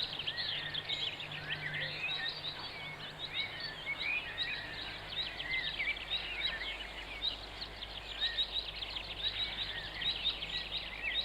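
Songbirds chirping and trilling in quick, repeated runs, with a faint steady low hum beneath.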